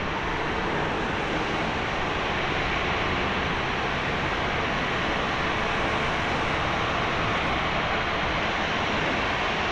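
Airbus A350-1000's Rolls-Royce Trent XWB-97 turbofans running at low thrust as the jet rolls along the runway, a steady even rush of jet noise.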